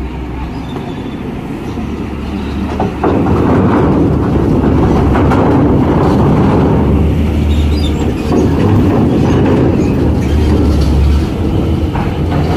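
Heavy truck pulling a trailer drives onto a ferry's steel loading ramp. Its diesel engine drones under load, and its wheels rattle and clatter over the steel plates, growing much louder about three seconds in.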